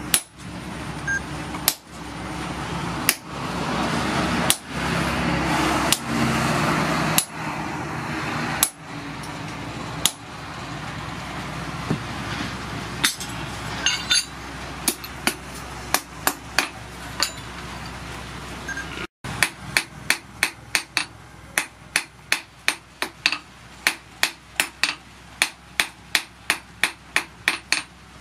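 Hammer blows on red-hot rebar at a blacksmith's anvil. At first come heavy strikes about every second and a half on a hot-cut chisel held in tongs, cutting the bar, with a steady rushing noise underneath. After a break about two-thirds through come quick, lighter hammer blows, two to three a second, shaping the hot steel.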